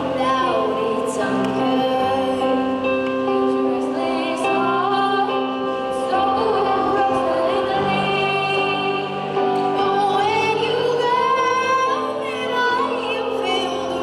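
A woman singing a slow song over long, held instrumental chords.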